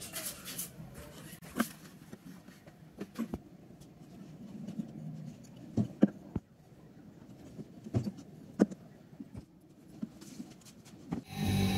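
Scattered light metallic clicks and taps of a hand tool and the silver ring against a steel ring mandrel, at irregular moments. Background music comes in near the end.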